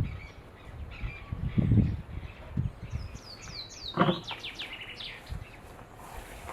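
Songbird calls: a quick run of high, falling chirps about three to five seconds in, over outdoor ambience with a few low thuds and one sharper knock about four seconds in.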